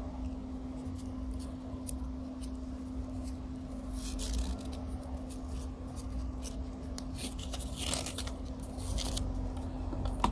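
Woven fabric watch strap rasping as it is pulled through under a steel watch case, in short bursts about four seconds in and again near eight seconds, with scattered light ticks of metal against metal.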